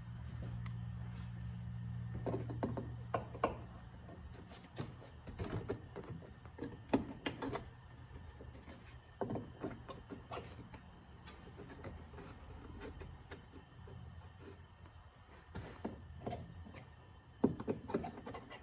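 Scattered light clicks and knocks of parts being handled and fitted, over a low steady hum that fades about four seconds in.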